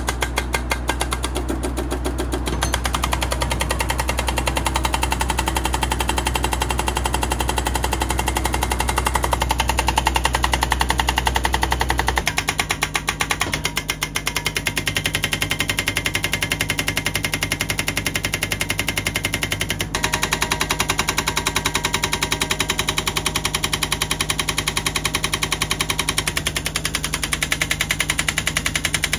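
Hydraulic breaker on a 2-ton mini excavator hammering rock in rapid, continuous blows, with the excavator's engine running underneath. The engine note shifts about twelve seconds in.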